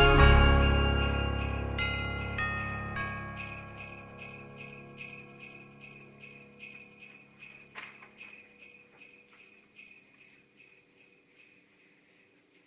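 End of a Christmas song in the background: the last chord rings out and fades, while sleigh bells keep shaking in a steady rhythm of about three a second, growing fainter until they are barely audible.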